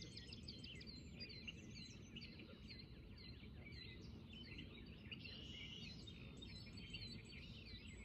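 Small birds chirping and twittering, many quick overlapping calls, faint over a steady low outdoor background noise.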